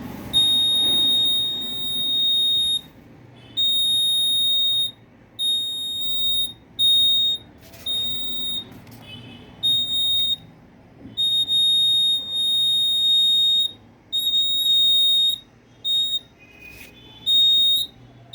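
Small electronic buzzer of a homemade light-beam (LDR) security alarm sounding a high, steady, piercing tone in irregular on-off beeps, some brief and some a couple of seconds long. The beeping means the light beam to the LDR has been broken and the alarm has been triggered.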